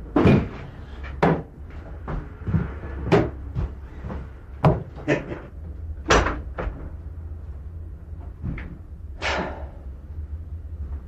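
A string of irregular knocks and clunks from a cupboard and objects being handled on a shelf, over a steady low hum.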